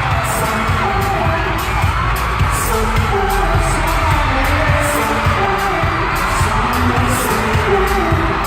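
K-pop song performed live and played loud through a concert sound system, with singing over a heavy, steady bass beat.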